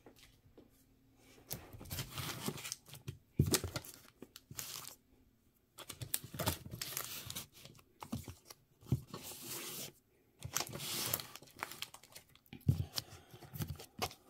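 Rustling and crinkling of card packaging as a stack of sports cards is handled, in irregular short bursts with brief pauses between them.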